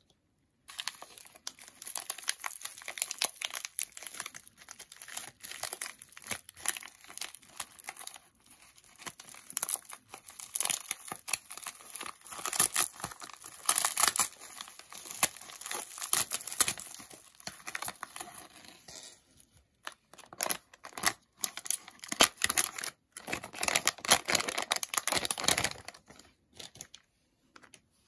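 Bubble wrap being unwrapped by hand: continuous crinkling and tearing of the plastic, with a few short pauses in the last third.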